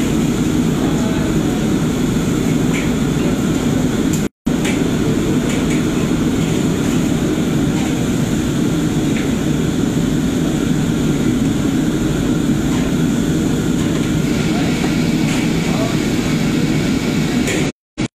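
Commercial kitchen wok station running: gas wok burners and the exhaust hood fan give a steady loud rush, with a few faint clinks of the ladle on the steel wok. The sound cuts out briefly twice.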